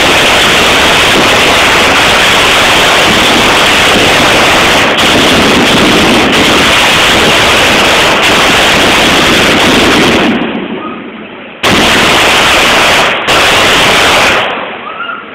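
A dense, continuous barrage of firecrackers and ground fireworks going off, a loud crackling clatter of rapid bangs. It dies down about ten seconds in, comes back with a sharp bang a moment later, and fades again near the end.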